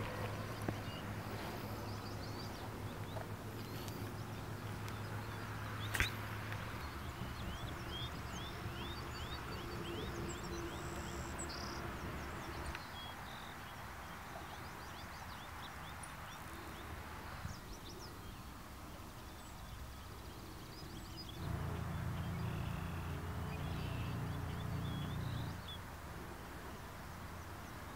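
Outdoor ambience: birds chirping over a low steady rumble, with a sharp click about six seconds in. The rumble grows louder for a few seconds about three-quarters of the way through.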